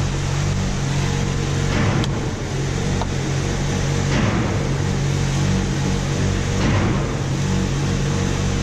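Steady road and engine noise inside a moving car's cabin, a low drone under a hiss, with a brief whooshing swell about every two and a half seconds.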